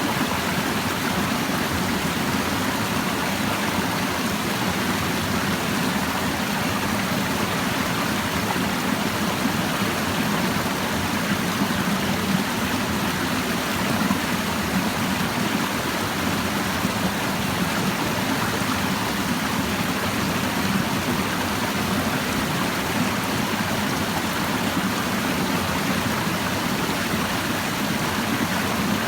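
Clear mountain stream babbling over rocks, a steady, unbroken rush of flowing water.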